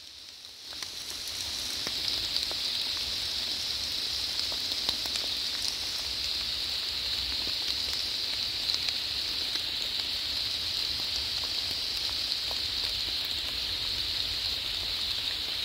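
Heavy rain falling steadily: an even hiss with scattered taps of drops close by. It fades in about a second in and then holds level.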